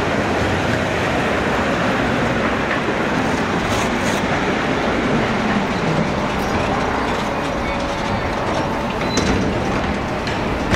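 Konstal 105Na tram running past close by on street rails and slowing to a stop, with a steady rumble of wheels on track and a few clicks. A faint thin whine comes in during the second half as it slows.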